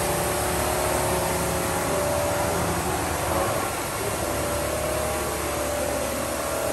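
Truck body side-panel roll forming line running: a steady mechanical hum of motors and hydraulics with a few held tones, its pitch shifting slightly about halfway through.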